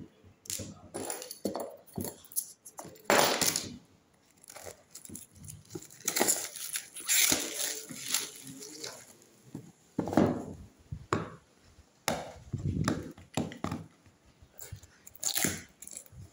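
Plastic wrapping crinkling and tearing, along with a cardboard phone box being handled and knocked, in irregular bursts of rustling.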